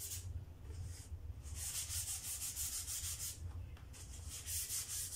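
Wood sandpaper rubbed by hand along the edges of a wooden panel: quick back-and-forth scratchy strokes, pausing briefly twice.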